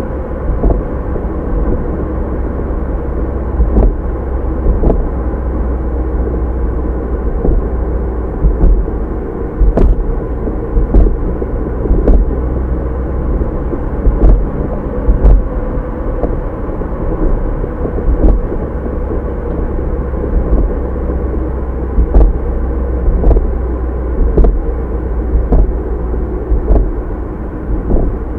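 A car engine running steadily with road noise, broken by irregular short thumps and knocks.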